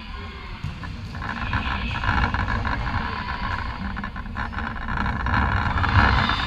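Volleyball rally in an echoing sports hall: the ball served and passed, with court noise and players' voices over a steady low rumble. The loudest hit comes about six seconds in.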